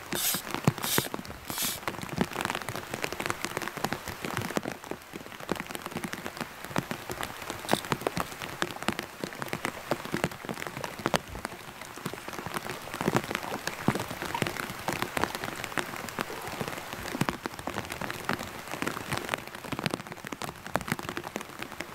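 Heavy rain hitting a plastic bag over the microphone: a dense, steady patter of drop hits, with a few sharper taps in the first two seconds.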